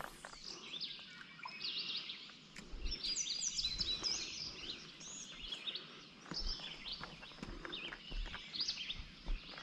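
Several songbirds singing and calling at once: many short, varied chirps and trills overlapping, busiest a few seconds in.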